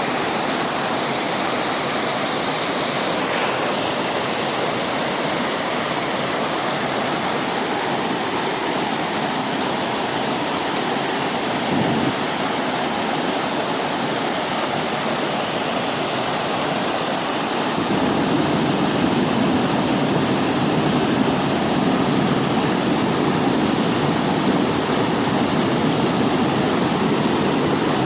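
Steady rush of falling and running water from a mountain waterfall and its creek. A deeper rumble joins about two-thirds of the way through and the sound grows a little louder.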